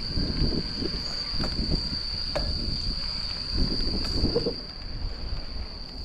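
A steady high-pitched insect trill, unbroken and unchanging in pitch, over an uneven low rumble with a few faint clicks.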